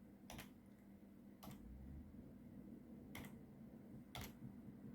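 Faint, slow keystrokes on a laptop keyboard: four separate key taps at uneven intervals.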